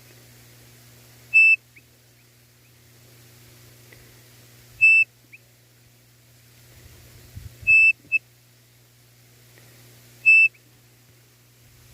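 A hand-blown pio, a bird-call whistle imitating the codorniz to lure it in, sounding four short, clear, high notes about three seconds apart. A quick extra note follows the third.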